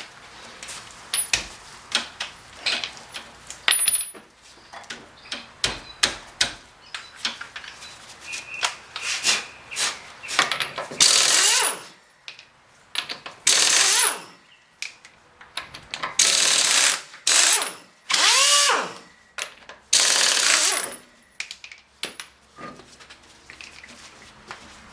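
Handheld power tool run in about five short bursts of a second or so, one with a whine that spins up and down, working bolts on a car's front brake assembly. Before the bursts come many scattered metallic clicks and clinks from tools and parts being handled.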